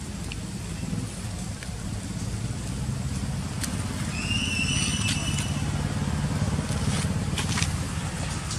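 A motor vehicle engine, likely a motorcycle, running as a steady low rumble that grows a little louder in the second half. A short, high, whistle-like call sounds about four seconds in and lasts about a second, with scattered faint clicks throughout.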